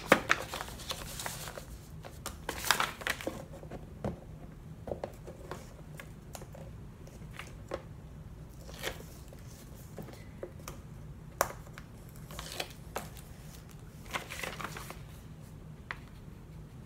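Paper envelopes being handled and folded: short bouts of paper rustling and crinkling, with scattered light taps and clicks.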